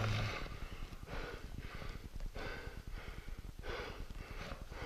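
A person breathing quickly, in repeated breaths about one every half second to a second.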